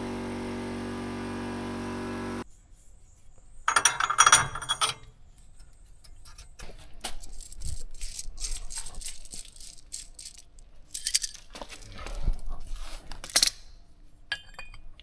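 A steady machine hum cuts off suddenly about two seconds in, followed by hand tools and small metal parts clinking and rattling on and off, with the loudest clatters near 4 seconds and again near the end.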